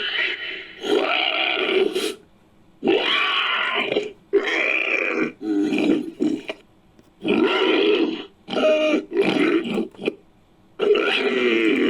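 Made-up dinosaur sound effects for the hybrid 'Psittacomoloch', built from Psittacosaurus and Stygimoloch creature sounds: a run of about eight short, rough animal calls, each about a second long, with brief pauses between them.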